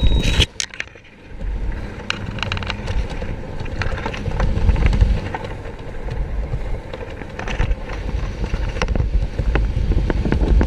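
Wind buffeting the microphone of a skydiver's body-mounted camera during the descent under the parachute, with scattered clicks and rustles from fabric and gear. The wind drops off briefly about half a second in, then picks up again.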